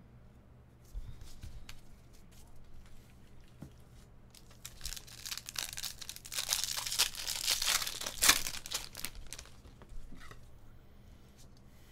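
The plastic wrapper of a baseball card pack being torn open and crinkled, a loud crackling that builds about halfway through and peaks just past two-thirds of the way. It is set between soft clicks of a stack of cards being handled.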